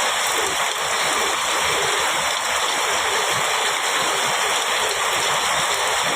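Heavy rain pouring steadily: an even, unbroken hiss.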